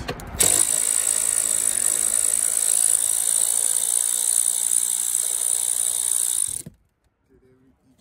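Snap-on cordless ratchet with a short 10 mm socket running steadily for about six seconds, spinning out a bolt that holds the roof airbag, then stopping suddenly.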